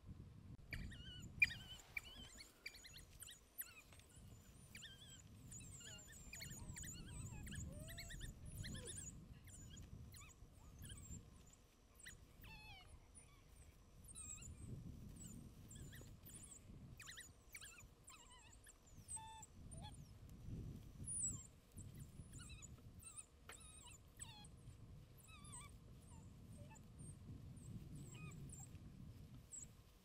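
African wild dogs giving many short, high-pitched twittering chirps, scattered all through, over a low rumble. There is one sharp click about a second and a half in.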